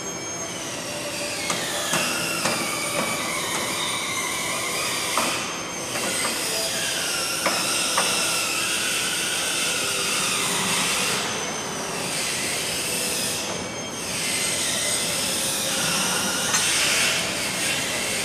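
Metal squealing and whining from a guillotine paper cutter while its knife is being fitted, the squeal sliding slowly down and back up in pitch over several seconds, with a few sharp clicks.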